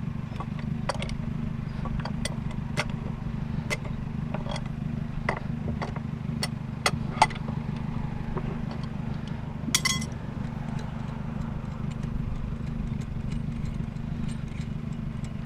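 Light metal clicks and clinks from a sink being taken apart for scrap, with one sharper ringing clink about ten seconds in, over a steady low engine-like drone.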